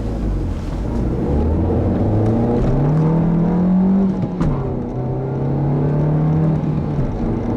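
A 2015 Nissan Versa S's 1.6-litre four-cylinder engine accelerating through its five-speed manual gearbox. The revs climb steadily, then drop sharply with a short click at an upshift about four and a half seconds in. They climb slowly again and fall away near the end.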